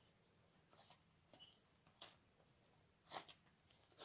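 Faint sticky crackles and soft pops of fluffy cornstarch-and-glue slime being stretched and squeezed by hand, a few scattered clicks with the clearest about three seconds in.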